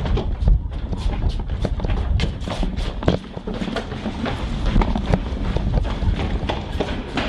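Hurried footsteps on a hard floor, an uneven run of knocks about two to three a second, over a steady low rumble.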